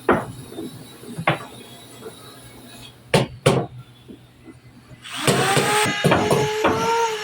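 A few separate hammer blows on wood. About five seconds in, a louder steady pitched sound starts, with regular knocks in it.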